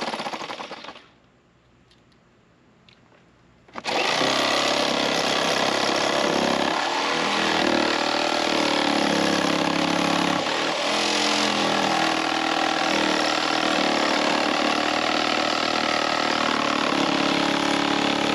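Jigsaw with a general-purpose blade cutting through the metal-skinned trailer door. It stops about a second in, and after a short quiet gap starts again just under four seconds in and cuts steadily.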